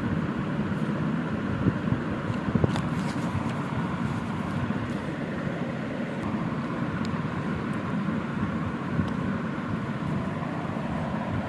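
Steady background rumble and hiss, like traffic or a room's ventilation, with a few faint light clicks scattered through it.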